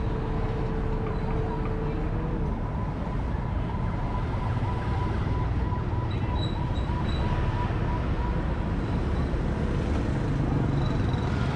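Busy street traffic with a steady low rumble of engines. A held tone falls away about two seconds in, and a high, rapidly pulsing electronic tone runs through the first part, like an alarm or siren.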